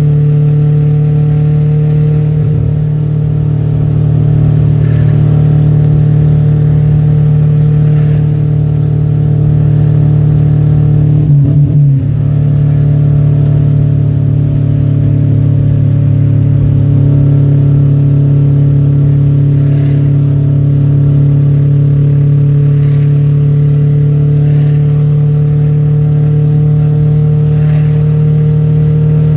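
Fiat Premio's turbocharged 1.5 four-cylinder engine heard from inside the cabin, running steadily under way at a constant pitch, with a brief break in the engine note about eleven seconds in.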